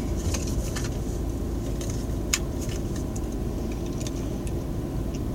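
Car engine running steadily, a low hum under a few light clicks and rattles, one sharper click a little past the middle.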